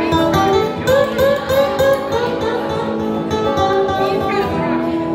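Two acoustic guitars playing together live, with a quick run of notes that bend up and back down in pitch about a second in.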